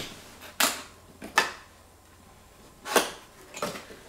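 Cardboard box being handled and opened by hand: three sharp cardboard snaps or taps, with a few lighter ones and some rustling near the end.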